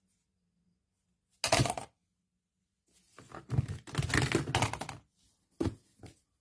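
Old mobile phones being handled and knocking together: a short clatter about a second and a half in, then about two seconds of irregular clicks and knocks, and one more knock near the end.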